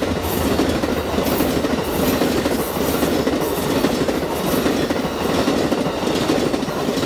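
Passenger train cars passing close by at speed: a steady rumble of steel wheels on the rails with a clickety-clack from the rail joints.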